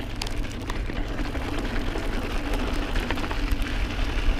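Mountain bike rolling along a loose, rocky dirt singletrack: a steady low rumble of the tubeless tyres on gravel, with scattered small clicks and rattles from stones and the bike.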